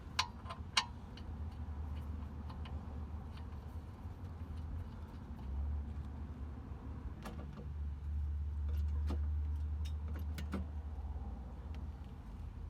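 Scattered sharp metallic clinks and taps of tools and parts while working on a car's rear suspension, over a low steady rumble that swells twice.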